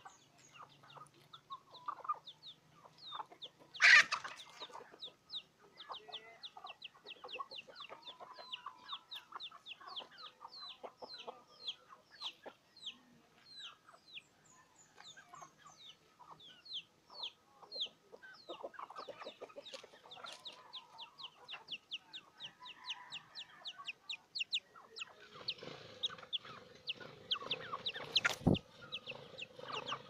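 Free-range native chickens clucking while they forage, with one loud sudden sound about four seconds in. After that, a steady run of short, high, falling chirps, a few a second, goes on through most of the rest.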